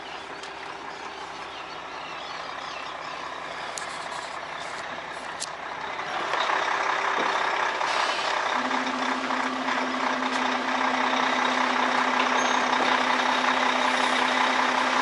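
Volvo semi-truck running as it moves off, its engine getting noticeably louder about six seconds in as it pulls the trailer away, with a steady low hum joining shortly after.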